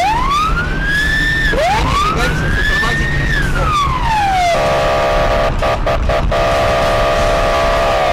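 Police car siren heard from inside the patrol car, wailing in slow sweeps that rise and fall. About halfway it switches to a steady blaring tone of several notes, then sweeps down and back up again near the end, over low engine and road rumble.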